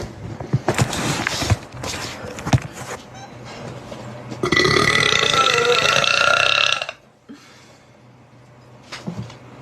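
A person burping loudly: choppy burping in the first couple of seconds, then about halfway through one long, loud burp lasting over two seconds that cuts off abruptly.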